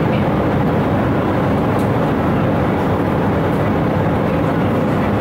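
Airliner cabin noise in flight: the steady, even rush of the engines and airflow.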